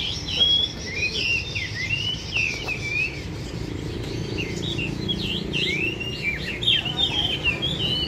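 Several caged songbirds singing over one another in short whistled phrases that slide up and down in pitch, with a brief lull about three seconds in before the song picks up again.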